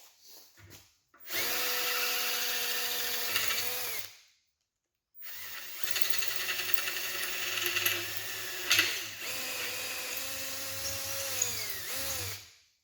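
Battery drill with a 1/4-inch bit drilling out a flywheel rivet, in two runs. The first lasts about three seconds and the second about seven after a short pause. The motor's pitch drops as each run ends.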